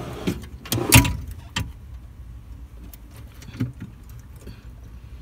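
A few metallic knocks and a short rattle from a steel vehicle security drawer being handled, the loudest knock about a second in, with lighter ones later.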